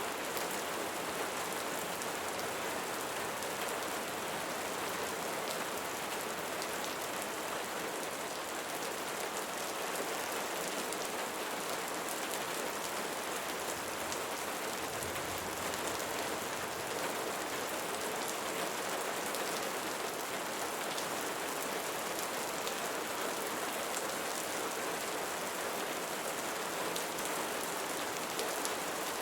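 Steady rain falling on a surface, an even hiss with fine patter of drops.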